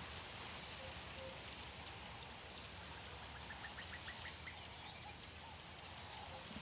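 Faint outdoor nature ambience: a steady hiss with a few soft, short calls and, past the middle, a quick run of about eight clicks.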